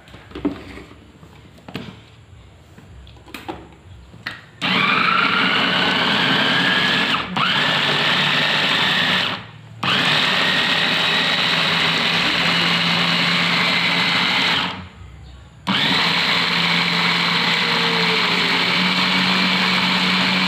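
Janoseno capsule mini blender running in pulses while blending avocado, a loud steady motor whine that climbs in pitch as it spins up. It runs three times, stopping briefly about halfway through and again about three-quarters through. Before it starts there are a few light clicks as the blender is handled.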